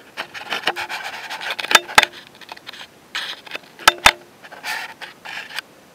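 Irregular rustling and scraping close to the microphone, with a sharp click about two seconds in and two more just before and after four seconds in.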